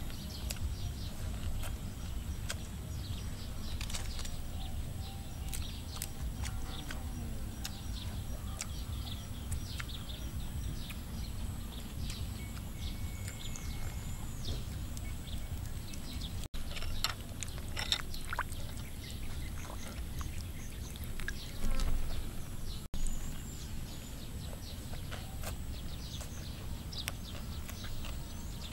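Outdoor ambience: a steady low rumble with small birds chirping now and then and a few light clicks. The sound cuts out briefly twice.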